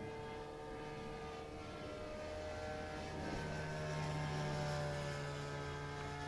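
Model airplane's glow engine droning as the plane flies, getting louder past the middle and then easing off, its pitch shifting slowly as it passes.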